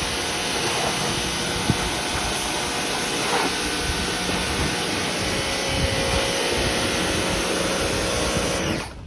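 FancyAll electric pressure washer running, its motor humming under the steady hiss of the water jet from the gun; it cuts off suddenly near the end.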